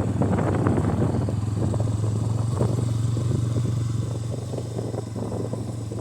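Bajaj Pulsar N160 motorcycle's single-cylinder engine running at a steady pitch, a low drone that grows gradually quieter over the last couple of seconds.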